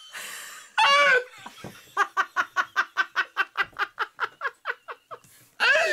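A man and a woman laughing hard together. A gasp and a high whoop come first, then from about two seconds in a long run of rapid ha-ha pulses, about six a second, and a fresh burst of laughter near the end.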